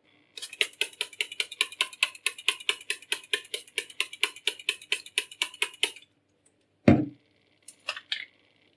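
Straight razor blade being stroked back and forth on a sharpening stone: a quick, even run of about fifteen scraping strokes, roughly two and a half a second. The strokes stop, then a single heavy knock comes about a second later, followed by a few light clicks.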